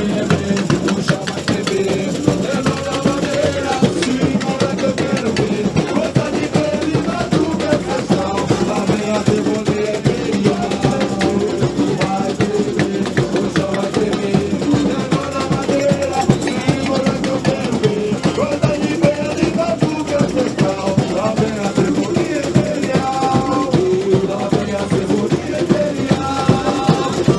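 Samba school bateria playing a continuous samba rhythm on drums and percussion.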